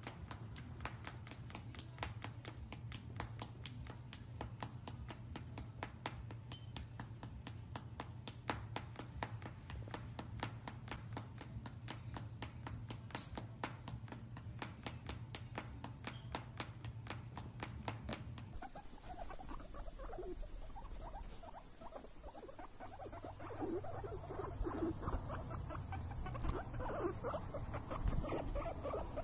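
A fast, even run of sharp clicks over a low hum, which stops suddenly about 18 seconds in. After that a guinea pig squeaks and chatters in short, scattered calls that grow busier toward the end.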